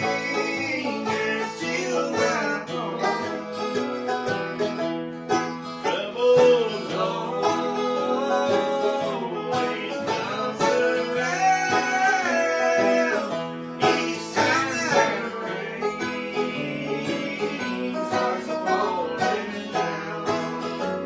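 Bluegrass picking: banjo rolling over strummed acoustic guitar, with some sliding, held notes above.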